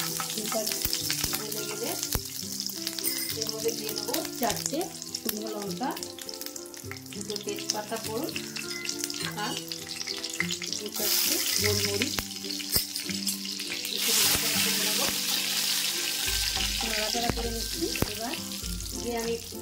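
Oil and ghee sizzling in a nonstick kadai as bay leaves and dried red chillies fry in it, with the light scrape and clicks of a spoon and spatula stirring. The sizzling swells louder twice in the second half.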